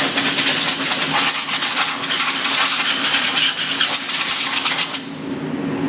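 Compressed air hissing loudly from a blow gun, with light metallic clinks of parts and chips on the machine table; the air cuts off abruptly about five seconds in, leaving the low hum of the CNC mill.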